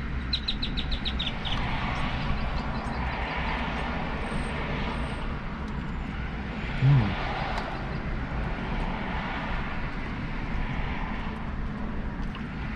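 Road traffic passing outside a parked car: a steady low rumble, with vehicles swelling past every few seconds. A quick run of high chirps comes about half a second in, and a short low hum of a voice about seven seconds in.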